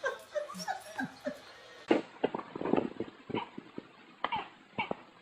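A dog whimpering and yipping in short, high calls. About two seconds in the recording changes, followed by scattered taps and brief high chirping calls.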